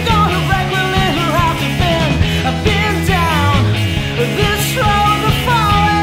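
Indie rock band playing a song with a steady beat, with sliding melodic lines over bass and drums.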